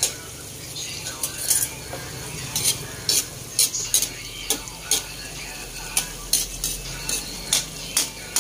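Isaw deep frying in hot oil in a metal wok with a steady sizzle, while a metal ladle stirs it and knocks and scrapes against the wok in repeated sharp clinks, about two a second.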